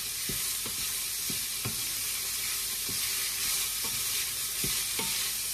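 Minced meat with onion and garlic sizzling in hot oil in a frying pan, with a wooden spatula stirring and scraping it in short strokes about twice a second over a steady hiss.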